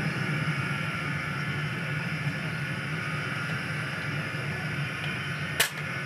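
Gas burner of a homemade crucible furnace running steadily on a low setting, a continuous rushing roar of burning gas in the lidded chamber. A single sharp click near the end.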